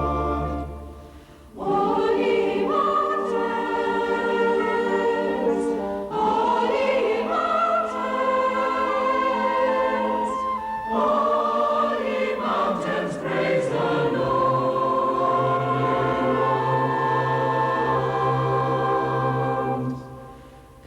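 A choir singing in long held phrases. The singing breaks off briefly about a second in and again near the end.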